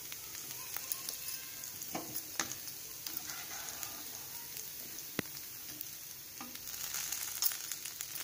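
Rava dosa sizzling steadily in oil on a hot flat griddle (tawa), roasted crisp on one side, with a few sharp clicks of a spatula against the pan as it is lifted and folded.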